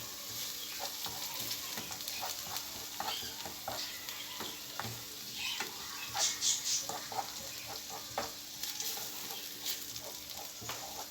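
Onion, garlic and tomato paste frying in oil in a frying pan: a steady sizzle, with a spoon stirring and scraping the pan in short irregular strokes.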